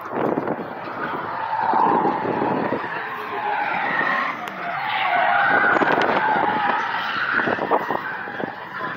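Car tyres squealing in long, wavering screeches that slide up and down in pitch, with car engine noise underneath.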